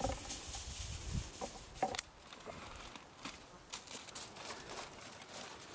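Aluminium foil rustling and crinkling as it is pulled from the roll and handled, dying down after about two seconds to faint scattered crinkles. A hen clucks briefly at the start and again about two seconds in.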